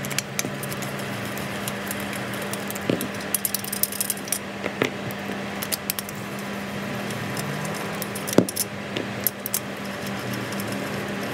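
A 5 mm Allen key working the socket-head screws out of a kart engine's Bendix cover: a few sharp metallic clicks as the key seats and shifts in the screw heads, over a steady low hum.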